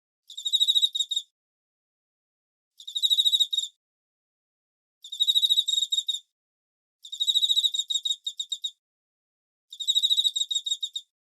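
A cricket chirping: five short trills, each a rapid run of high-pitched pulses lasting about a second, with dead-silent gaps of one to two seconds between them.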